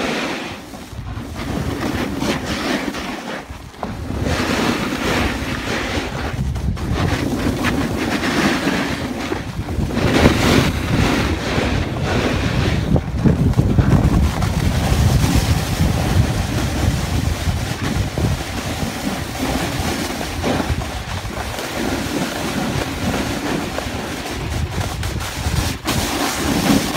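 Wind rushing over the microphone and a snowboard's edge scraping across the snow while carving downhill, the rushing noise swelling and easing as it goes.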